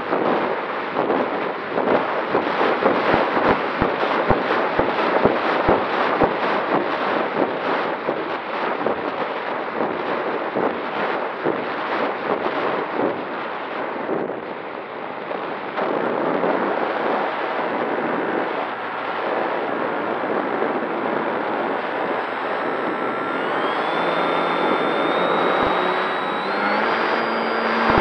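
Wind rushing and buffeting over the onboard camera microphone of a Durafly Tundra RC plane in flight. About two-thirds of the way in, the plane's electric motor whine comes in and rises in pitch in steps as the throttle is opened.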